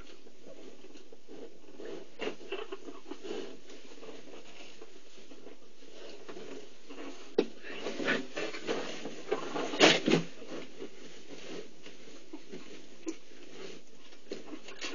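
Cheetah mother grooming her newborn cubs in a straw-lined den: soft rustling and licking sounds over a steady hiss, with a flurry of sharp scuffles and clicks about eight to ten seconds in.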